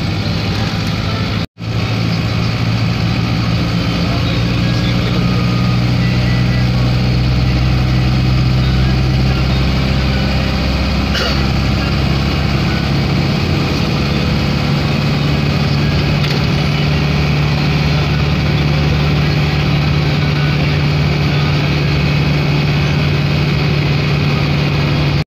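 Steady low drone of a vehicle's engine and road noise, heard from inside the cabin while driving; the pitch of the hum shifts slightly about eleven seconds in. The sound cuts out for an instant about a second and a half in.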